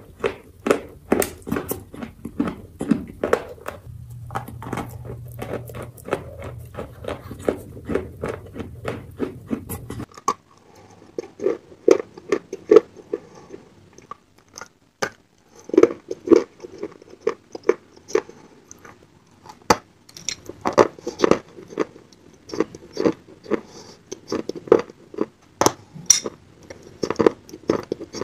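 Close-miked biting and crunching of dry chunks of Ural black clay: sharp crunches in quick clusters as pieces break off, between stretches of chewing. A low steady hum runs under the first part and stops about ten seconds in.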